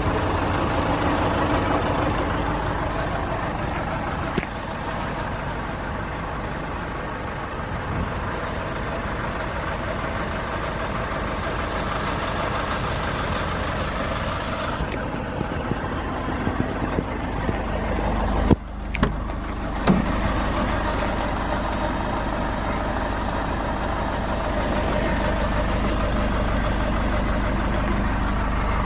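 Nissan NV350 Caravan's 2.5-litre diesel engine idling steadily. A sharp click about four seconds in, and two knocks about two-thirds of the way through.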